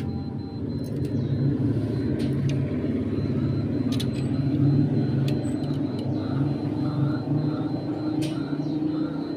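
A steady low mechanical rumble, like a running engine, with scattered sharp clicks and a few faint short high chirps.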